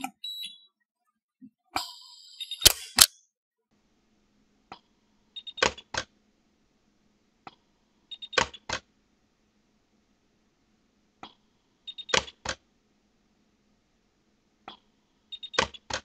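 Orion pulse-arc dental micro welder firing weld pulses on a partial-denture clasp: sharp snaps in pairs about every three to four seconds, five times, each pair led by a faint click about a second before. A low steady hum runs from a few seconds in.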